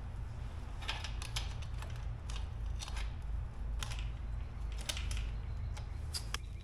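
Light metallic clicks and clinks at irregular intervals from a motorcycle drive chain being handled and fitted onto the rear sprocket, over a steady low hum.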